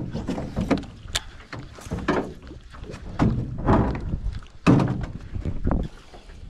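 Irregular thunks and knocks on an aluminium boat's hull and fittings as fishing gear is handled, with low rumbling handling noise between them; the loudest knock comes a little under five seconds in.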